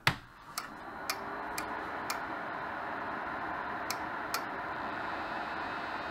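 Ender 3 Pro 3D printer switched on: a sharp click, then its fans spin up within about a second into a steady whir. Sharp ticks come about twice a second for the first couple of seconds, and twice more around four seconds in.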